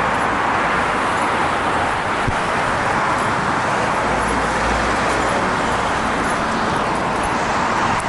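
Steady road traffic noise, an even rush of passing vehicles with no breaks.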